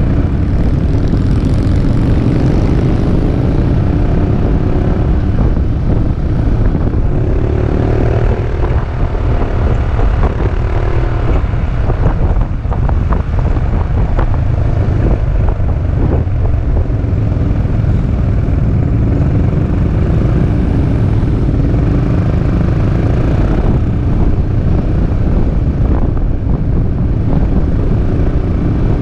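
Peugeot Metropolis three-wheeled scooter riding at road speed: its engine runs steadily under heavy wind rumble on the handlebar-mounted action camera's microphone. The pitch rises and falls briefly about eight seconds in.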